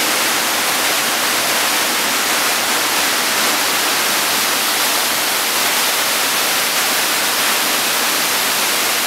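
Tiered waterfall cascading down layered rock ledges into a pool: a steady, even rush of falling water.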